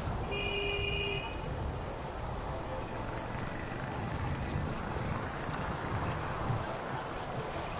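A moving train's steady low rumble with a constant high drone of crickets over it. A short high tone lasting about a second sounds near the start.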